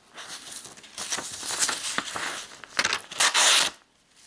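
Folding knife's stainless steel blade slicing through paper: a run of rasping, crackly cuts, the loudest a little past three seconds in, ending just before the close.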